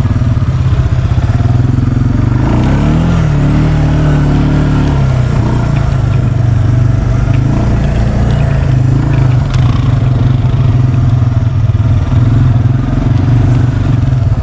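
ATV engine running under load, revving up and easing off in pitch a few seconds in.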